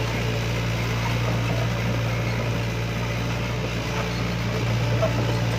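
Hitachi hydraulic excavator's diesel engine running steadily at constant speed, a low even hum with no revving.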